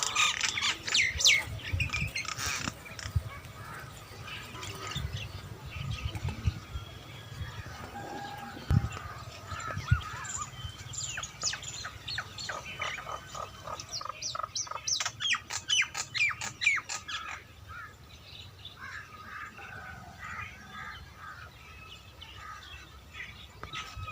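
Birds chirping and calling, with a fast run of sharp chirps about two-thirds of the way through. A few sharp knocks come in the first half.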